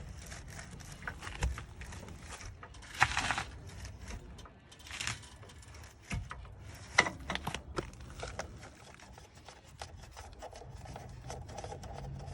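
A car jack being worked to lift the car: irregular clicks and knocks with a couple of short scrapes.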